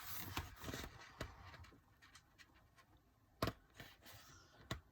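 Faint rustling of paper as photobook pages are handled, with a couple of sharp taps or clicks, one about three and a half seconds in and one near the end.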